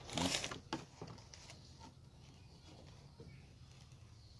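A brief rustle at the start, then a few faint clicks and taps from hands working a bamboo kite frame and its string, over a quiet background.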